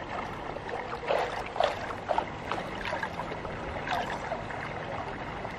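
Swimming-pool water sloshing and splashing as a swimmer paddles her arms through it, in small irregular splashes.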